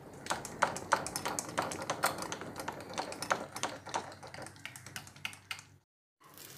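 Wire whisk beating thick pancake batter in a bowl, clicking against the bowl's sides about four times a second with a wet, sloppy stir underneath; it stops abruptly near the end.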